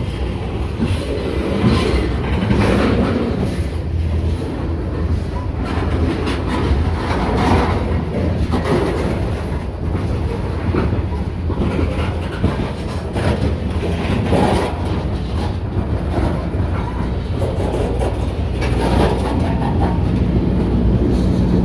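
Freight train rolling past: a steady heavy rumble of the cars on the rails, with irregular knocks from the wheels.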